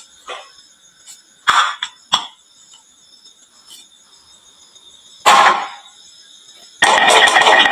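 Glass marbles clacking on a wooden marble run: a few single sharp clicks with a short ringing tail, then near the end a dense, continuous rattle of many marbles rolling and knocking together.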